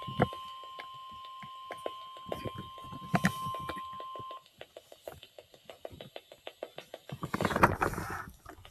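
NOAA weather radio's warning alarm tone, a steady beep near 1050 Hz, cutting off about four seconds in; it is the attention signal ahead of an alert message, here a weekly receiver test. Irregular clicks and crackle run throughout, with a rush of static near the end.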